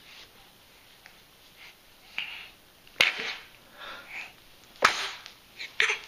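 Short, sharp sneezes: a small one about two seconds in, then three louder ones about three seconds in, near five seconds, and a quick double just before the end.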